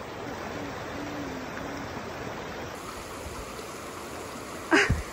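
Shallow creek running over rocks, a steady rush of water. Near the end a short voice cuts in briefly.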